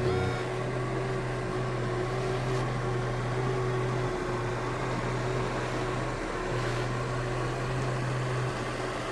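An electric fan motor running with a steady low hum. The hum dips briefly twice, about four and six seconds in.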